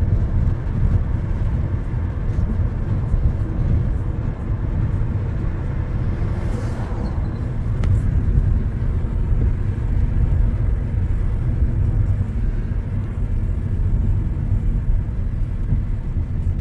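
Steady low rumble of a car's road and engine noise heard from inside the moving cabin, with a brief rush of noise about six and a half seconds in.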